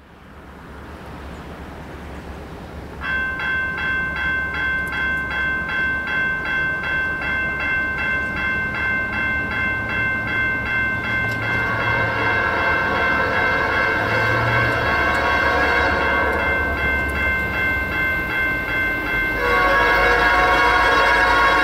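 An approaching Norfolk Southern diesel freight locomotive sounds its multi-note air horn from about three seconds in, holding it to the end and getting louder, with a step up near the end. The diesel engine's low rumble runs underneath.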